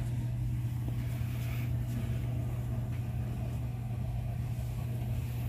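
Steady low machine hum with a rumble beneath it, holding one unchanging tone.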